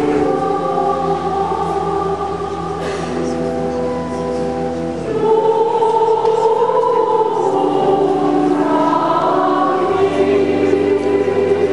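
A choir singing church music in slow, held chords over a steady low bass note that changes every few seconds.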